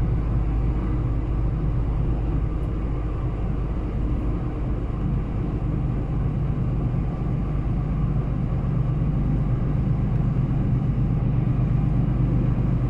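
Steady low drone inside a moving lorry's cab: the diesel engine's hum and road rumble at an even motorway speed.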